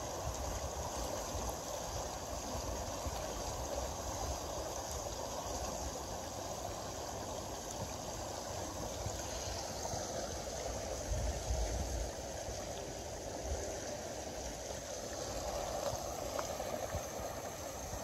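River water rushing and gurgling steadily past the bank. Low rumbling buffets on the microphone come and go, loudest about eleven seconds in.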